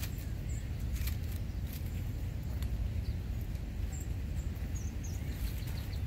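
Small songbirds giving a few faint, short, high-pitched chip calls over a steady low background rumble.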